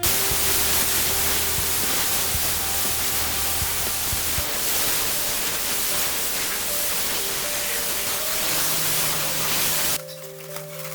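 Steady loud hiss of a compressed-air spray, as from an air spray gun, which starts abruptly and cuts off sharply after about ten seconds, with background music underneath.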